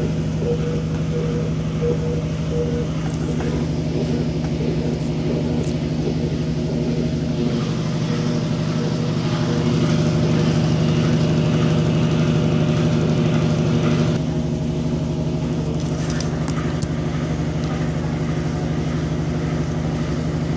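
Continental Evolution automatic washing machine running while washing rugs, its motor giving a steady hum. The hum gets louder for about six seconds in the middle, then settles back to its earlier level.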